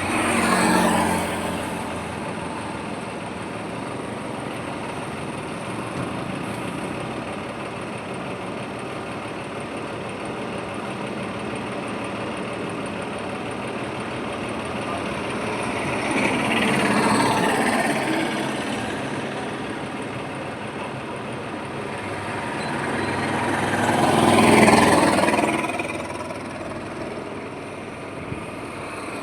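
Highway traffic: a steady rumble of tyres and engines, with vehicles passing close by three times, once right at the start, once about 17 seconds in, and loudest about 25 seconds in.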